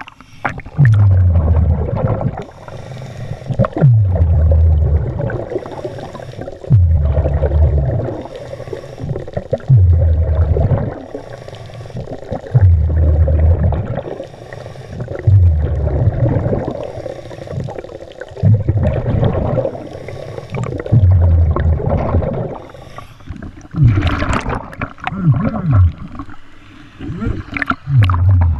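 Scuba diver breathing through a regulator underwater: a soft hissing inhale, then the low bubbling rumble of the exhaled bubbles, repeating about every three seconds.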